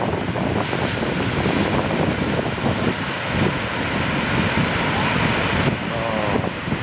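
Ocean surf breaking on the beach, with wind buffeting the microphone.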